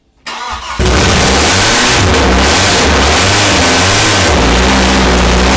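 BMW M42 1.8-litre four-cylinder engine, swapped into an FSC Żuk van, being started for the first time. After a brief crank it catches under a second in and runs very loud with no exhaust fitted, its pitch shifting as it is revved.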